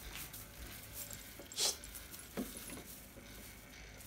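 A cat pawing at a small artificial Christmas tree: faint jingling and light rustling of the plastic branches, with a couple of short scrapes, the clearest about a second and a half in.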